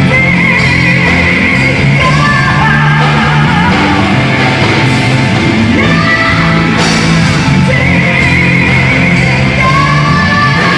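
Rock song with a male singer belting high held notes with a wide vibrato over distorted guitars and a band, several long wavering notes one after another.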